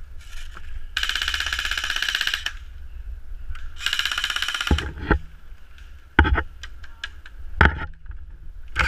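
Airsoft electric rifles firing on full auto: a rapid burst of about a second and a half, a shorter burst about four seconds in, a few sharp single cracks, and another burst starting right at the end. The sound is muffled by a waterproof camera housing.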